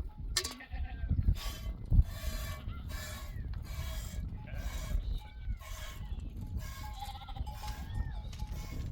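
Flock of sheep bleating, many short calls overlapping one after another, over a steady low rumble.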